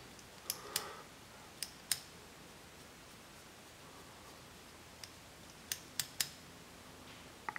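Small, sharp metal clicks from a Badger 155 Anthem airbrush being handled and adjusted during reassembly, a couple near the start, a pair about two seconds in, and a quick run of three near six seconds.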